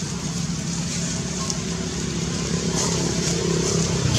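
A motor vehicle's engine running steadily, growing louder toward the end as it draws closer.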